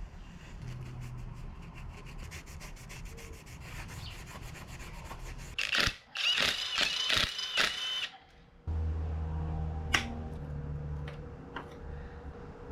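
Scraping and rubbing on metal engine parts: quick repeated strokes, then a louder squeaky scraping stretch about six seconds in, followed by a low hum and a single click.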